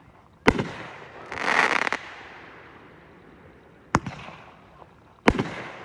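Consumer fireworks going off: three sharp bangs, each with a fading echo, about half a second in, at four seconds and just after five seconds. After the first bang comes a dense crackling burst of about half a second.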